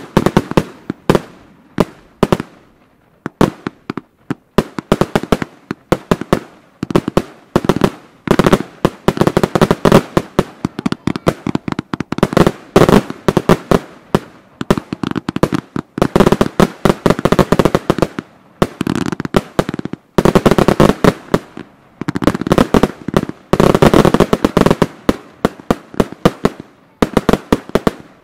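Firework battery cakes firing: a rapid run of sharp bangs as shots launch and burst, several a second, with crackling in between. The shots thicken into dense salvos several times and thin out near the end.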